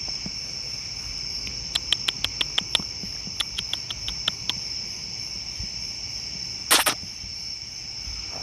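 Steady night chorus of crickets, a continuous high trill. About two seconds in come two quick runs of sharp clicks, several a second. Just before seven seconds a brief loud burst of noise is the loudest sound.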